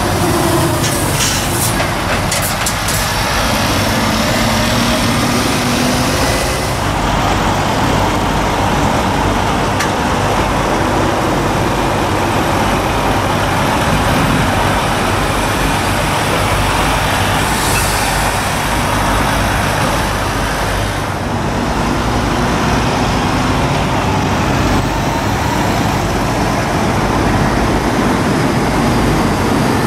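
Heavy diesel trucks, Scania and Renault lorries, running steadily as they pull slowly past one after another, with short air-brake hisses about a second in and again around the middle.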